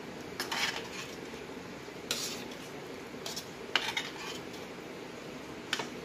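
A spoon scraping and clinking against a stainless steel frying pan as thick tomato spaghetti sauce is stirred, in several short bursts, with the loudest clank a little before four seconds in and a last clink near the end.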